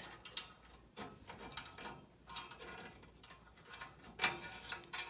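Small metal furnace igniter being pulled out and handled: scattered light metallic clicks and scrapes, with a sharper click about four seconds in.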